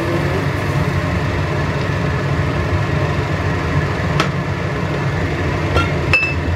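A steady low mechanical hum like a kitchen fan, with sharp metal clinks about four seconds in and again about six seconds in.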